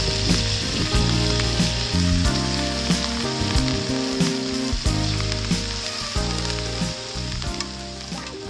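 Food frying on a hot multi griddle: a steady sizzle with small crackles. Background music with chord notes plays over it and fades toward the end.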